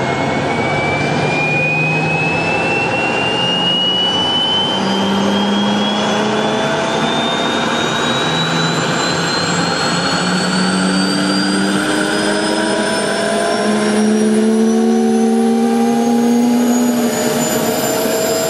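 Turbomeca Astazou turboshaft engine of an SA 341 Gazelle helicopter spooling up during start-up: a loud, steady turbine rush with a high whine that rises steadily in pitch. Lower tones join in and climb during the second half as engine speed builds.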